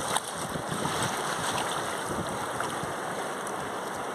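Waves washing at the water's edge: a steady rush of water.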